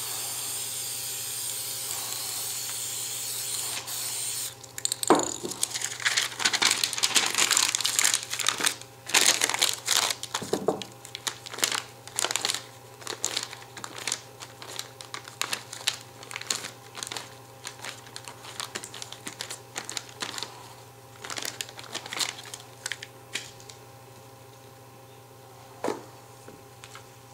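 A spray paint can hissing steadily for about four seconds. Then a crumpled sheet of paper crinkles in quick irregular bursts as it is pressed and dabbed onto the wet paint to texture it, thinning out near the end, with a single knock shortly before the end.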